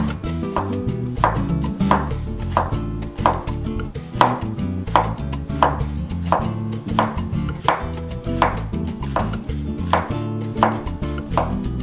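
Kitchen knife slicing a rolled thin egg crepe into strips, each stroke knocking on a wooden cutting board in a steady rhythm of about three knocks every two seconds.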